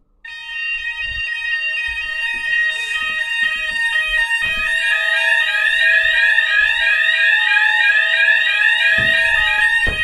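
Fire alarm sounders sounding an evacuation alarm: a steady high tone with a fast, repeating rising sweep laid over it. It starts abruptly and grows louder over the first few seconds. The system is in full alarm after a test activation of an optical smoke detector. A low knock comes near the end.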